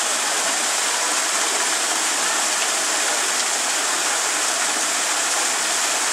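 A steady, even rushing noise, like running water, unchanging throughout, with no call or other distinct sound standing out.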